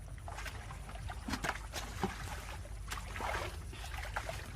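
Water splashing and trickling in small, irregular bursts, with scattered light knocks, over a steady low rumble.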